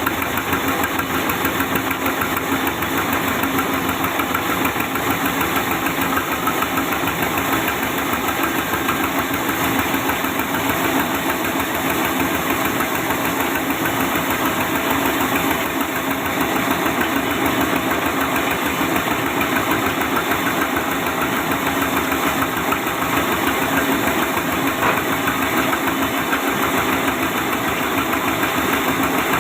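Sawmill machine running steadily: a loud, continuous mechanical noise with a fast, even pulsing that holds level throughout.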